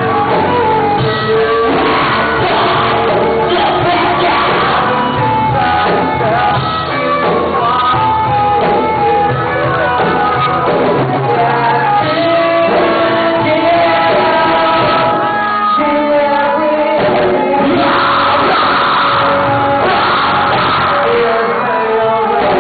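A rock band playing live, with electric guitars and a singer's lead vocal over the band.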